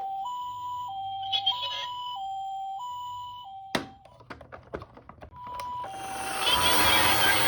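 Japanese-style two-tone ambulance siren, 'pee-po', alternating a higher and a lower tone about every two-thirds of a second. About four seconds in it breaks off for a sharp click and a few lighter clicks. Then it starts again, and a loud rushing noise builds up under it near the end.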